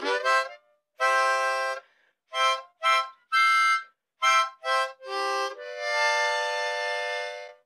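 Harmonica playing a short Christmas tune: a run of short and longer chords, ending on one long held chord that cuts off at the end.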